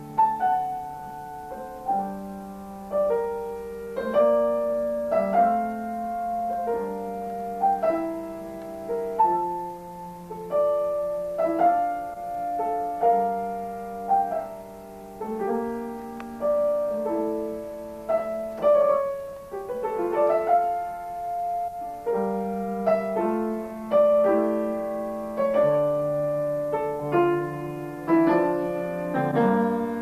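Solo piano playing a classical piece at an unhurried pace, a melody over chords with notes left ringing and the loudness swelling and falling phrase by phrase.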